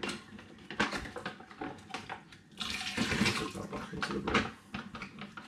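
Foil pouch crinkling as it is handled, with the rinse water from the pouch pouring out into a plastic brewing bucket for about a second, roughly two and a half seconds in.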